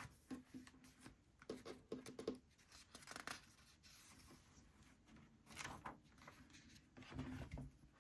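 Near silence broken by faint rustles and light clicks of paper being handled, as the pages of a picture book are turned.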